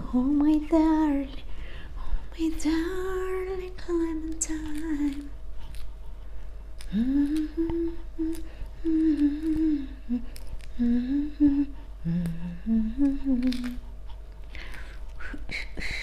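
A woman humming a slow tune in short held notes, phrase by phrase with brief pauses, stopping near the end. Small clicks from her hands peeling pomelo segments sound between the notes.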